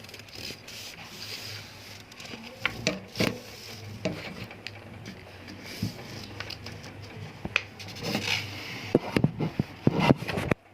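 Scattered light knocks, clicks and rustling of handling, over a faint steady low hum, with a flurry of sharper knocks near the end.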